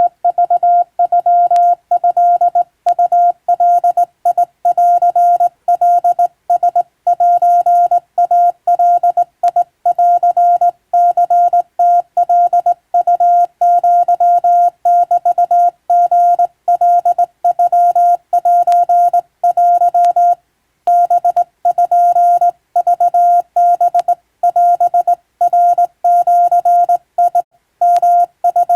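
Hand-sent Japanese (wabun) Morse code: a single steady beep tone keyed on and off in dots and dashes, with a couple of short breaks between groups.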